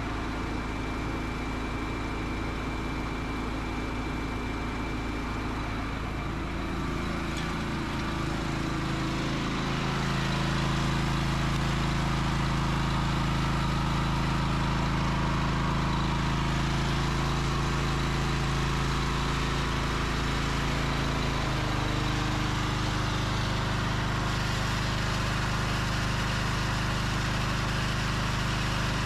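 Small gas engine driving a spray-tender transfer pump, running steadily while liquid is pumped through the flow meter at about 16 gallons a minute. Its note rises and gets louder about eight to ten seconds in, then shifts again about two-thirds of the way through.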